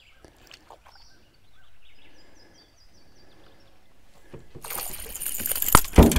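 A small hooked bass splashing and thrashing at the surface beside the boat for about a second and a half, ending in a heavy thump about six seconds in as it is swung aboard.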